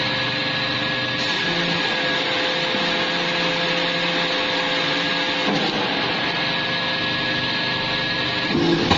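Scrap metal baler's hydraulic power unit running steadily, a motor-and-pump hum with a constant whine. The tone shifts briefly about halfway through and again near the end, as the load changes.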